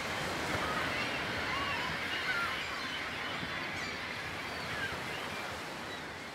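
Ocean surf washing on a rocky beach, with faint short high calls scattered over it, gradually fading out.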